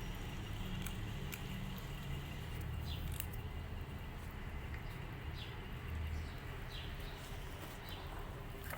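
Cats eating together, a kitten lapping and slurping soup in small wet clicks, over a steady low rumble; brief high falling chirps come now and then from about three seconds in.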